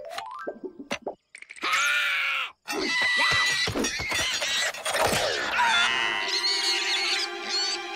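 Cartoon slapstick sound effects: a short rising whistle, then a loud crash with breaking sounds about a second and a half in, followed by a jumble of effects and shrieks, giving way to steady held music chords near the end.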